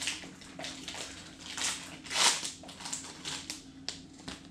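Foil booster-pack wrapper of Pokémon cards crinkling as it is opened and handled, in a string of crackly rustles, the loudest about two seconds in.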